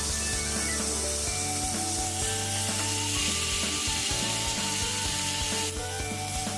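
Corn on the cob sizzling in a dry frying pan as it grills, its seasoning browning; the sizzle drops off near the end. Background music with held notes plays throughout.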